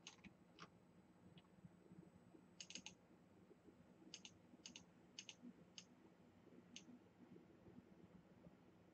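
Faint computer mouse clicks, about a dozen, several coming in quick pairs like double-clicks, over quiet room hiss.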